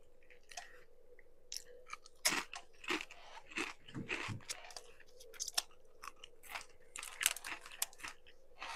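Chewing Doritos tortilla chips: crisp crunches coming in short runs, with brief pauses between them.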